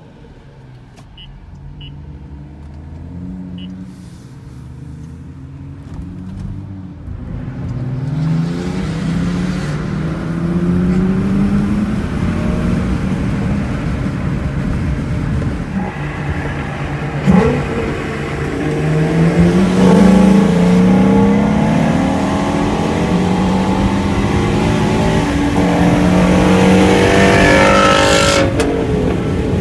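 Car engine heard from inside the cabin, accelerating hard through the gears. The revs climb in several long rising sweeps, the pitch dropping back at each shift, with a brief sharp knock partway through.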